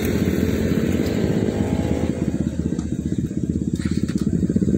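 Motorcycle engines idling with a steady low, even putter; about halfway through the higher sound thins out, leaving the low pulsing idle.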